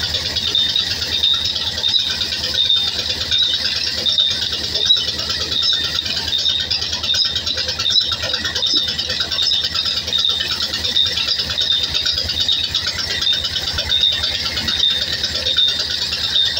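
Large wheel-type band saw running and cutting through logs: a steady rattle over a continuous high-pitched hiss with a thin whine in it.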